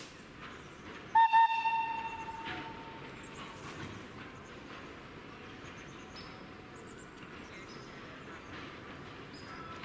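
Thomas the Tank Engine replica locomotive's whistle giving two quick toots about a second in, the note trailing off over the next second. After that, the steady low rumble of the approaching train.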